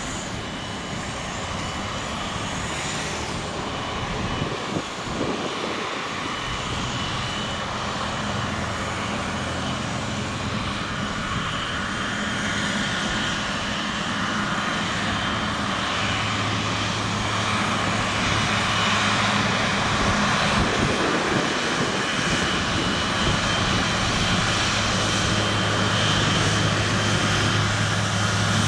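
Jet engines of a Boeing 777-200ER, its General Electric GE90 turbofans, running with a steady roar that grows gradually louder, a thin high whine held over it and a deeper hum coming up in the second half.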